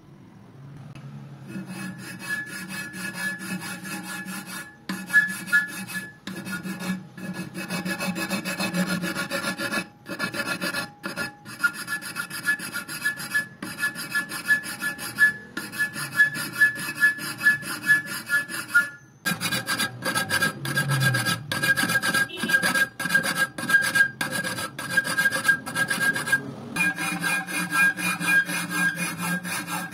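Flat metal hand file rasping back and forth over a weld bead on an aluminium crankcase, in repeated strokes about one a second with short gaps, dressing the weld flush to resurface the repaired oil chamber.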